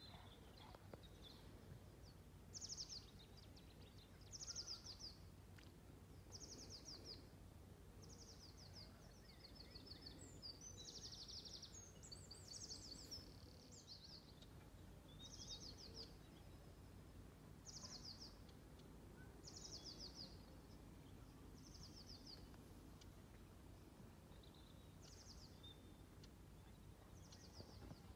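A songbird singing faintly: short, high trilled phrases of rapid notes, repeated every second or two, over a low steady background rumble.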